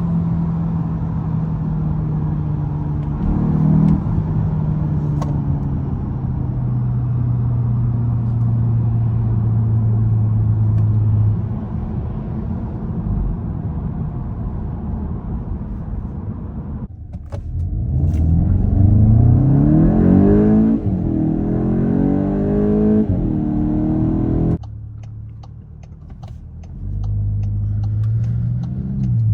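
Volkswagen Golf 8 GTI's 2.0-litre turbocharged four-cylinder petrol engine under way. It first runs at a steady pitch, then revs climb hard under acceleration, with one upshift dropping the pitch partway through. The sound falls away suddenly as the throttle is lifted, then settles to a steady run again.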